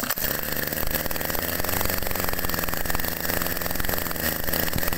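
Shindaiwa two-stroke brush cutter engine running steadily.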